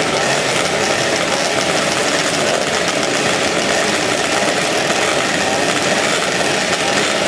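Several small two-stroke motorcycle engines running together at a start line, a steady dense drone with no clear revving.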